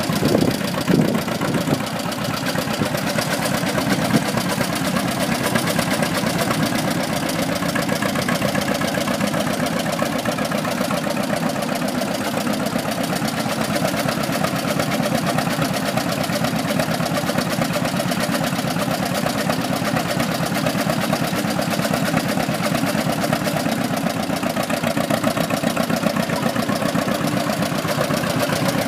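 John Deere styled AR tractor's two-cylinder engine running steadily as the tractor is driven slowly.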